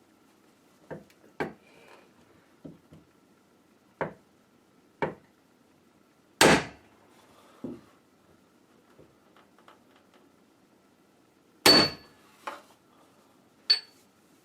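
A 2-pound sledgehammer striking a piece of brass held against a door hinge to bend it closed, so the door will stop dragging on the frame. About ten separate knocks and taps, with two heavy blows standing out, the later ones ringing briefly.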